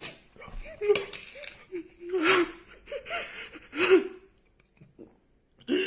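A person crying theatrically in loud gasping, wailing sobs, several bursts with short pauses between them.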